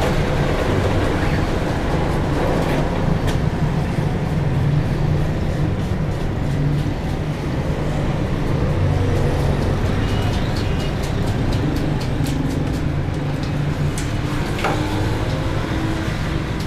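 Busy street traffic: vehicle engines running with a steady low rumble, and a few sharp clicks scattered through.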